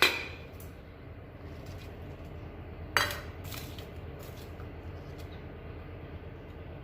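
Clinks and light knocks as spices and dried dates are dropped into a metal pan of water, one louder clink about three seconds in, over a steady low hum.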